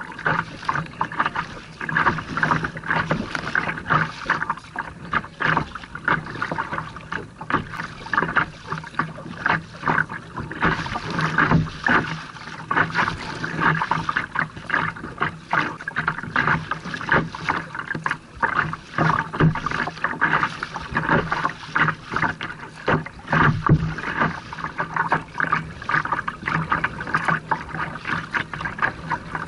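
Choppy water splashing and slapping against a kayak's hull, a continuous irregular patter of small sharp splashes.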